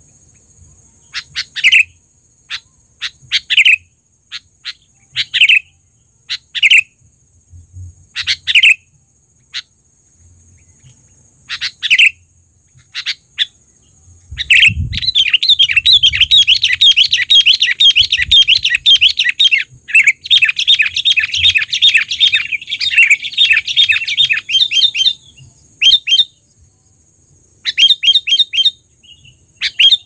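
Sooty-headed bulbul calling. For the first half it gives short, sharp chirps about once a second. About halfway through it breaks into a loud, rapid chattering run of about ten seconds, with a brief pause in the middle, and then gives a few more short bursts.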